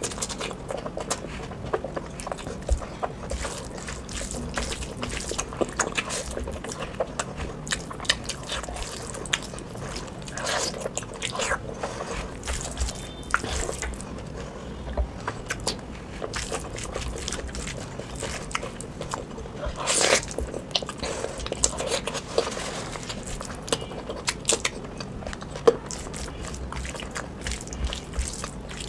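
Close-up wet eating sounds: a hand squishing, mixing and scooping oily mutton curry and rice, and chewing with mouth smacks, heard as many short, irregular squelches and clicks. A louder cluster of them comes about two-thirds of the way through.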